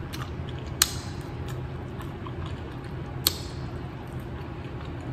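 Close-miked mouth sounds of someone sucking and nibbling a chicken wing bone clean, with two sharp clicks, one about a second in and another a little after three seconds, over a steady low hum.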